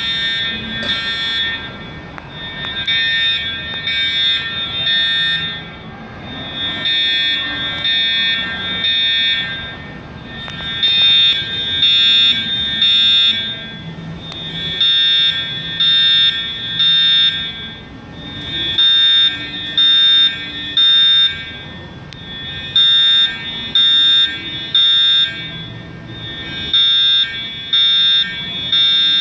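Edwards Integrity fire alarm horns sounding loud electronic blasts in repeating groups of three, the temporal-three evacuation pattern.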